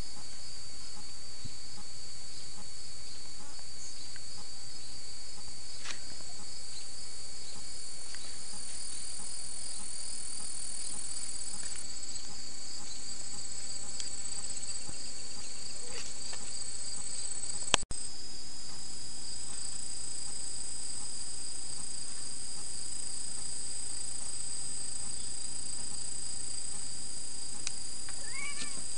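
Crickets and other insects trilling in a steady, high-pitched chorus, with a click and a brief break about two-thirds of the way through.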